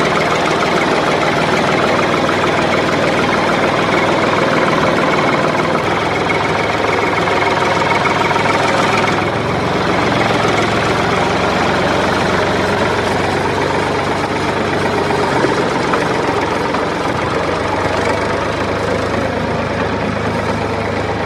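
Diesel tractor engine idling steadily, shifting slightly in tone about nine seconds in.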